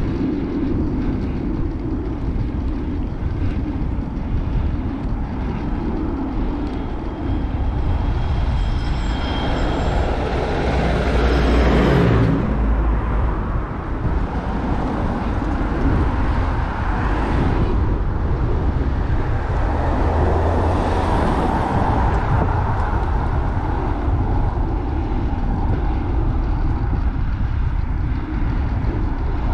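Steady low wind rumble on the microphone with road noise while riding. A vehicle passes about twelve seconds in, its sound building and then dropping in pitch as it goes by, and another, fainter one passes around twenty seconds in.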